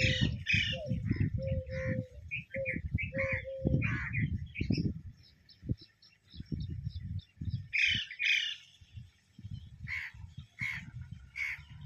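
Birds calling in farmland: a quick series of short chirps, then louder calls near the middle and again near the end. An uneven low rumble on the microphone runs underneath.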